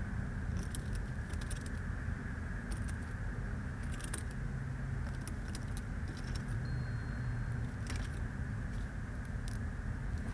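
Small metallic clicks and jingles from a ratchet and socket being handled and worked under the bonnet, coming irregularly over a steady low background hum.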